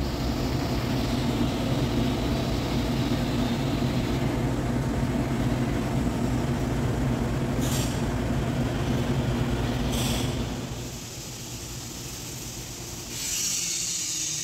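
A steady low mechanical hum that drops away about eleven seconds in, followed by a steady hiss near the end.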